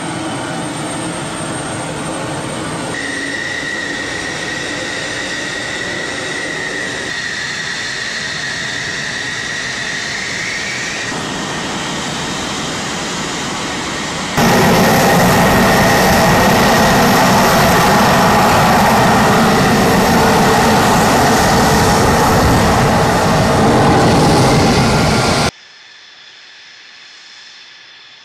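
F-16 fighter jet engine running on the ground: a steady rushing noise with a high whine, heard in several clips joined by abrupt cuts. It gets louder about halfway through and drops sharply to a quieter engine sound a few seconds before the end.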